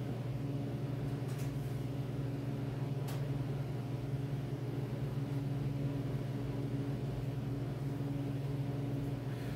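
Steady low machine hum, with a couple of faint light clicks.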